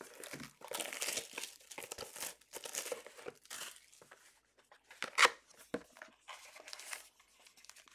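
Cardboard 2019-20 Panini Status basketball card box being torn open by hand: a run of irregular tearing and crinkling noises, the loudest a sharp rip about five seconds in.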